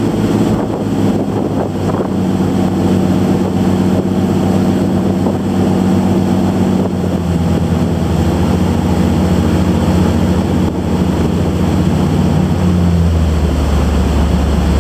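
A boat's engine running steadily under way, with wind buffeting the microphone and water rushing past the hull. Near the end the engine note drops and deepens.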